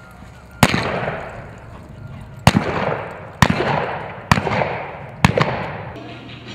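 Five revolver shots, one-handed single-action revolvers fired with blank rounds to break balloons in a cowboy mounted shooting run, spaced about a second apart, each sharp crack trailing off in a long fading echo. Music starts faintly near the end.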